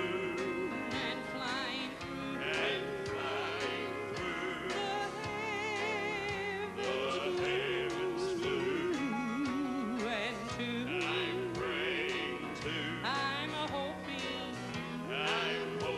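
Male gospel quartet singing live with band accompaniment: a lead voice with wide vibrato over a steady beat and a moving bass line.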